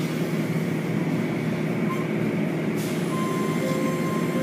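Automatic car wash heard from inside the car: water and soapy foam pouring and spraying over the windshield and body, with the wash machinery running. A steady, dense noise that holds at one level.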